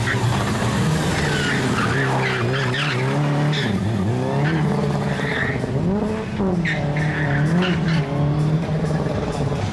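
Subaru Impreza rally car's flat-four engine revving hard, its pitch rising and falling again and again as it is driven through tight corners. Short squeals of the tyres sliding come in between.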